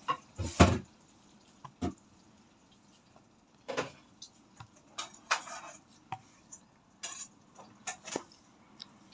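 Scattered knocks and clinks of kitchen dishes and utensils being handled. The loudest is a heavy knock about half a second in, followed by a dozen lighter clinks.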